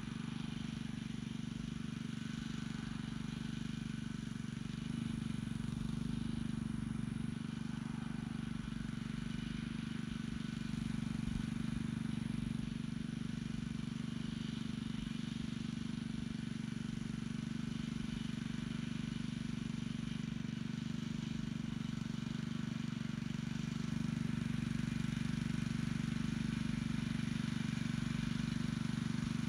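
Small gas engine of an Earthquake tiller running steadily under load while pulling a hiller attachment down a potato row.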